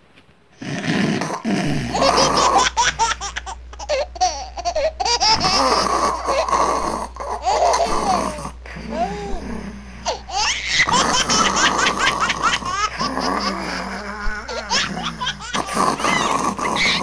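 A person laughing hard in repeated fits, with rapid runs of 'ha-ha' pulses and high squealing breaths, over a steady low hum.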